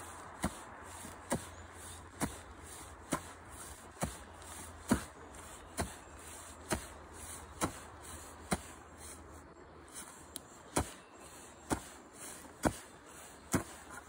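Hatchet-like blade chopping into forest-floor turf alongside a wooden plank guide, cutting a strip of sod to be rolled up for covering a tar kiln. Steady, evenly paced strikes, about one a second.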